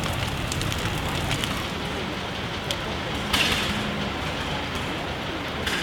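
Bonfire of wood stacked with seized antlers, horns and ivory burning: a steady rush of flame with sharp crackles and pops, and a louder flare-up about three seconds in.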